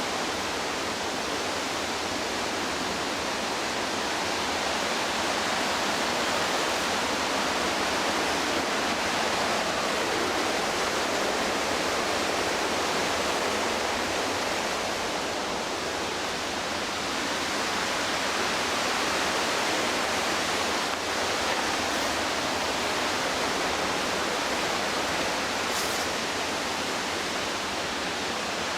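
Steady, even rush of whitewater on the McKenzie River, a constant wash of water noise that does not let up.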